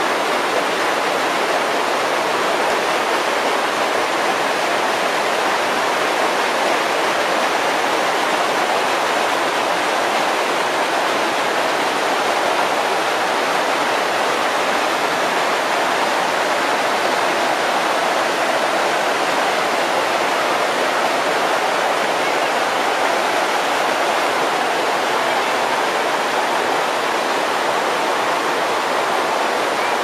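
Shallow stream rushing and splashing over boulders: a steady, even rush of water.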